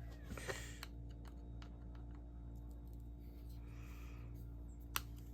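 Faint, scattered light clicks and taps of small metal parts and a screwdriver being handled while a fishing reel is taken apart, with one sharper click near the end, over a steady low hum.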